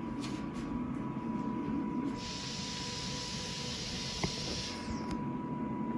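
Respironics BiPAP machine in timed mode delivering a breath into its breathing circuit, cycling pressure from 0 to 20 cm of water. A rush of air rises about two seconds in and falls away near five seconds, over a steady high tone, with one short click a little past four seconds.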